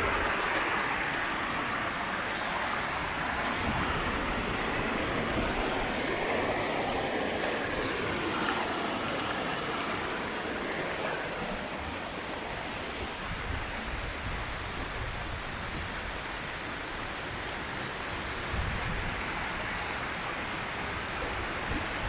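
Waterfall: a steady rush of falling water, with low gusts of wind on the microphone.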